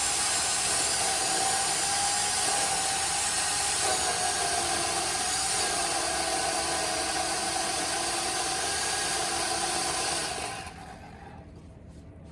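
Remington Ranger II electric pole chainsaw running with a steady whine while cutting a limb, its pitch sagging slightly under load. About ten seconds in it is switched off, and the motor and chain wind down.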